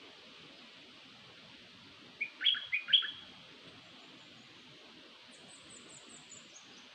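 Bird-call decoy recording of the bird known in Thai as nok dok taeng: a quick burst of about four short, loud chirps a little after two seconds in, then a faint run of high notes falling in pitch near the end.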